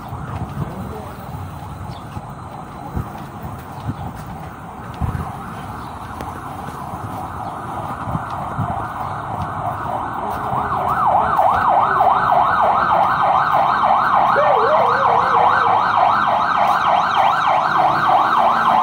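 Emergency-vehicle siren, faint at first, then a fast yelp of about three rising-and-falling sweeps a second that grows loud about ten seconds in.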